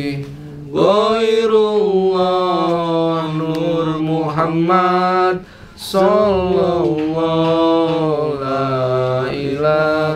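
A man's voice chanting solo in long, held melodic phrases, with the pitch wavering and bending within each note and short pauses for breath about half a second and five and a half seconds in.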